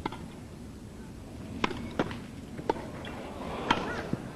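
Tennis rally: the ball struck back and forth by rackets, a handful of sharp pops about a second apart over a faint crowd murmur.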